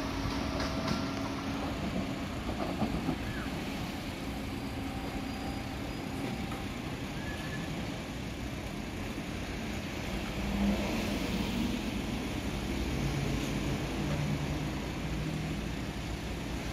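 Trenitalia ETR 104 'Pop' electric multiple unit running away along the track, a steady rumble with a faint low motor hum.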